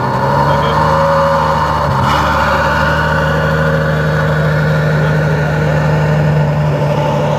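Ferrari FF's 6.3-litre V12 running steadily at low revs as the car pulls slowly away, heard close to the exhaust. The note dips briefly in pitch about two seconds in, then holds steady.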